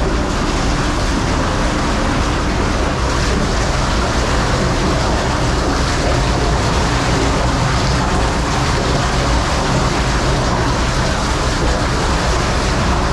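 Motor vehicle running: a loud, steady rumble with a hiss of noise over it.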